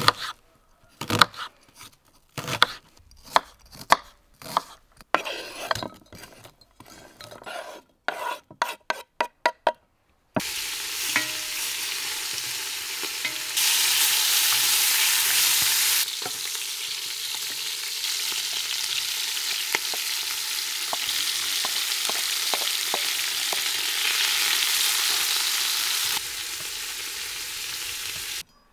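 A kitchen knife slicing onions on a wooden cutting board: a run of sharp taps that come faster near ten seconds in. Then meat starts frying in a hot pot with a steady loud sizzle, louder for a couple of seconds, while it is stirred with a wooden spoon.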